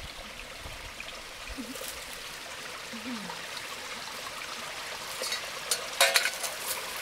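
Small stream of water running steadily, a light trickling rush. Near the end come a few sharp clinks and knocks as a metal pot is set down among the stones at the water.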